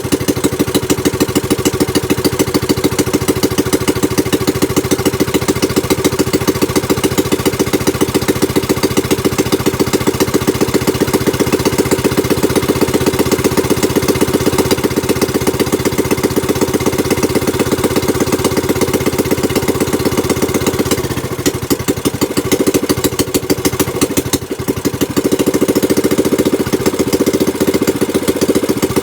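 Small gasoline boat engine running on a newly fitted replacement carburetor, with a steady rapid firing beat; a little over twenty seconds in it runs rough and dips for a few seconds, then picks back up to its steady beat.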